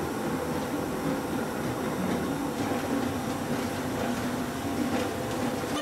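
Commercial dough mixer running steadily, its motor humming as the mixing arm churns flour, egg and water into a stiff, crumbly dough in a steel bowl.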